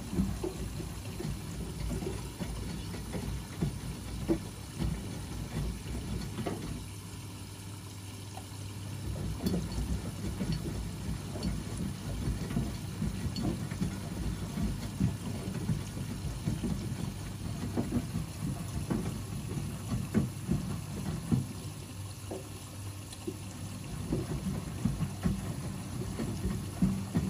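Two front-loading washing machines, an AEG Öko-Lavamat 88840 and a Miele Novotronic W 985 WPS, running a wash: water sloshing and churning in the drums, with two short lulls in the churning.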